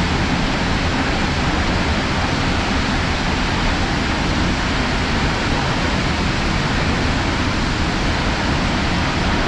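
Steady, loud rushing of water, an even roar with no breaks or changes.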